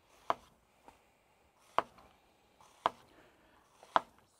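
Chef's knife chopping onion on a wooden cutting board: four sharp knocks, each a second or more apart, with a few fainter taps between.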